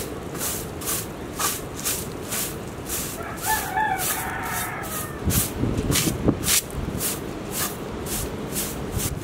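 Straw broom sweeping ash off a baked salt crust in quick strokes, about two a second. A rooster crows briefly, about three and a half seconds in.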